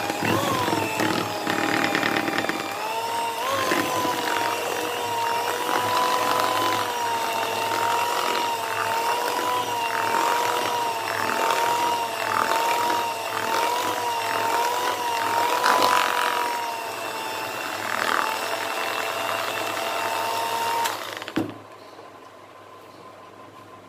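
Electric hand mixer running, its twin beaters whipping thick ghevar batter in a plastic bowl: a steady, slightly wavering motor whine with irregular clicks over it. The whine steps up in pitch about three seconds in, and the mixer is switched off near the end.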